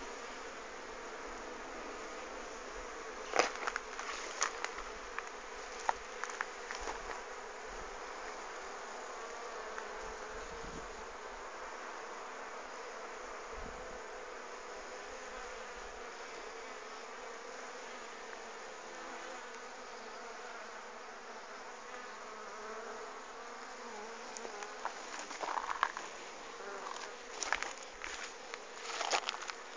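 Swarm of honeybees buzzing steadily as the cluster is moved into a hive, with a few sharp knocks about three seconds in and again near the end.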